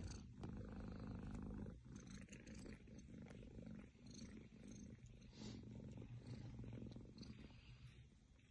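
Kitten purring: a faint, steady low rumble, with a few soft taps over it.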